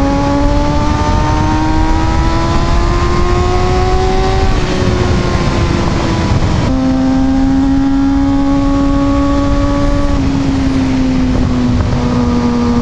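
Kawasaki ZX-6R 636's inline-four engine pulling with its pitch rising steadily for about four seconds, then falling away abruptly as the throttle is chopped shut, before settling to a steady lower note that eases down a little twice near the end. Heavy wind noise runs under the engine throughout.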